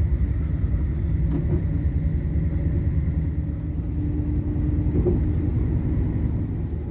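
Bus running along the road, a steady low rumble.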